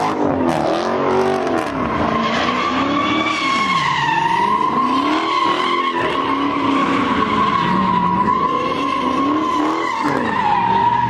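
Car tires screeching in one long, steady squeal as a car does donuts, with the engine revving and its pitch rising and falling each time the car swings around.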